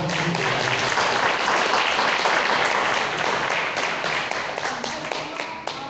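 Audience applauding, a crowd of hands clapping that thins out and dies away near the end.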